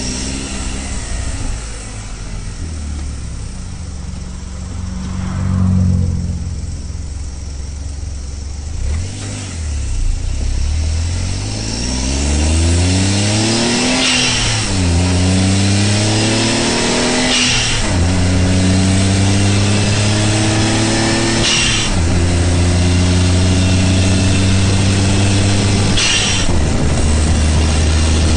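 Exhaust note of a Honda S660's turbocharged three-cylinder engine through a Fujitsubo Authorize RM aftermarket muffler. It runs low and uneven at first, then from about ten seconds in the car accelerates and the pitch climbs through the gears. The pitch drops sharply at four upshifts, each with a short hiss.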